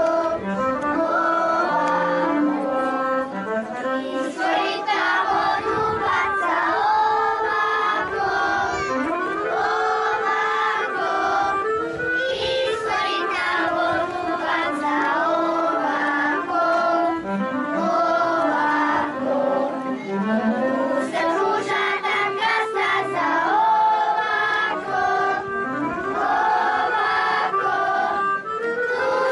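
A group of children singing a Serbian folk song together, their voices gliding between notes.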